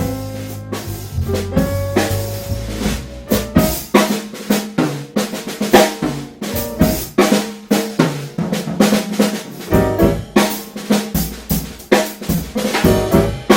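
Jazz piano trio music with the drum kit to the fore: busy snare, rimshot and bass-drum hits under piano chords. The low bass line falls away about three and a half seconds in, leaving drums and piano.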